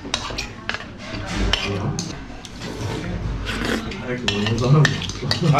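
Metal spoon and fork clinking and scraping against ceramic bowls as jjajangmyeon noodles are stirred and eaten, in many short sharp clicks, with voices in the middle.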